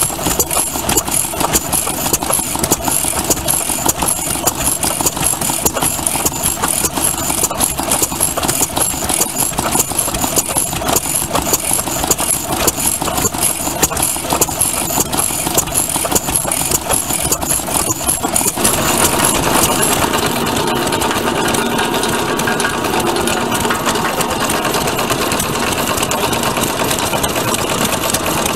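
Vintage Japanese kerosene stationary engine running with a steady, even beat. About two-thirds of the way through, the sound changes to a denser, steady mechanical rattle: a small engine driving a belt-driven grinder.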